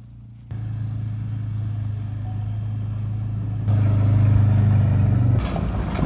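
Quad bike (ATV) engine running at a steady pitch, stepping up louder a little past halfway, then turning rougher and noisier near the end.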